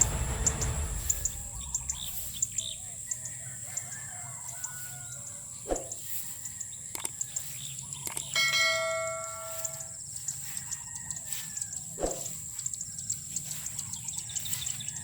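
Outdoor rice-field ambience: birds chirping over a steady high insect drone, with a few sharp knocks and one held ringing tone lasting about a second and a half, a little past the middle.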